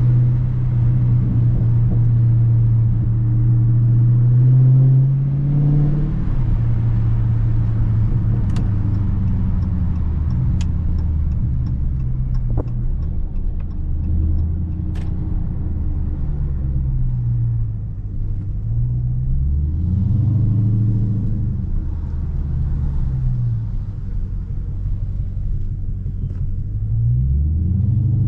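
2019 Dodge Charger Scat Pack's 6.4-litre HEMI V8 running under way with a loud exhaust rumble, its pitch rising and falling several times as the car accelerates and eases off.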